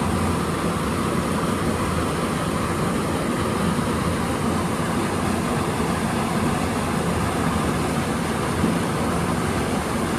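Water rushing and churning steadily as it pours out of a concrete culvert into an irrigation channel, a constant even roar of whitewater.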